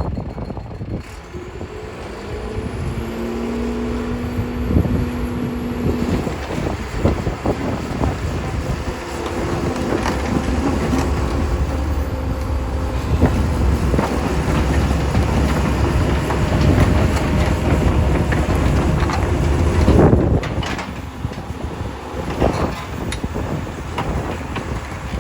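Kobelco SK200SR hydraulic excavator working: its diesel engine runs under changing load, with a hydraulic whine that comes and goes and scattered metallic clanks. The engine grows louder a couple of seconds in and eases off after about twenty seconds.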